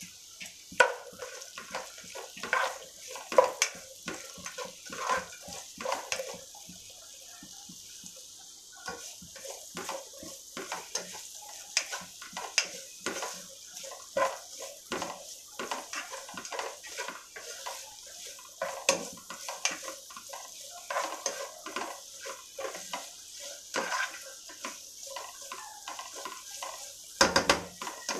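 A spatula stirring sliced onions and green chilies in a non-stick pan, with many short knocks and scrapes against the pan. Underneath is a light, steady sizzle of the onions frying in oil.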